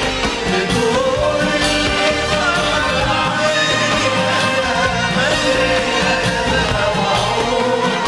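Arabic Khaleeji orchestral song played live: a violin section, oud and hand drums such as riq and darbuka, with a voice singing over a steady beat.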